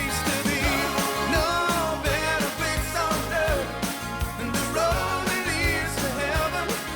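Background music: an upbeat rock-style song with a steady drum beat and a wavering lead melody line.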